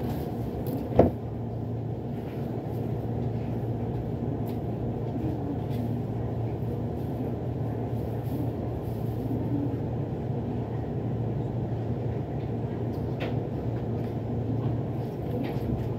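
Steady low hum of a stationary electric train waiting at a station, with a single sharp knock about a second in.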